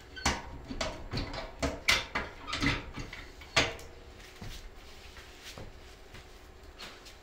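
Dishes and utensils being handled on a table: a string of clinks and knocks over the first few seconds, then only a few faint ticks.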